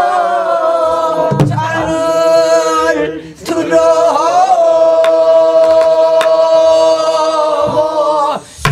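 A group of men and women singing a Namdo folk song together, in the Korean southwestern style, on long held notes that waver and bend. The singing breaks off briefly about three seconds in and comes back on one long held note. A few single strokes, likely on a buk barrel drum, fall now and then.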